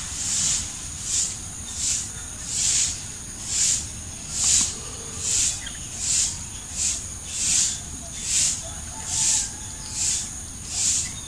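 An insect calling: a high-pitched hiss that swells and fades about five times every four seconds, over a steady high tone.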